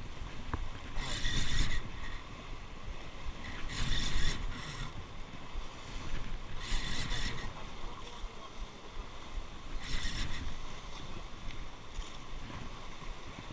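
Ryobi Virtus spinning reel whirring in four or five short bursts about three seconds apart, over a steady low rumble of wind and surf, with a tuna hooked and being fought on the line.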